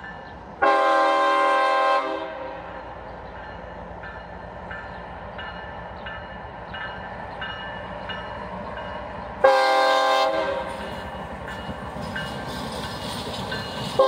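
CSX freight locomotive's air horn sounding two blasts of about a second each, roughly nine seconds apart, with a third starting at the very end. Between blasts a bell rings about twice a second over the train's low rumble as it approaches.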